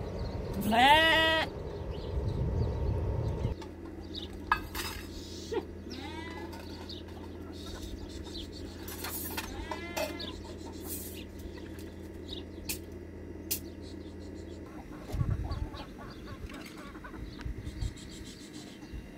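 Farm animals calling: one loud call rising in pitch about a second in, then a few fainter calls around six and ten seconds in.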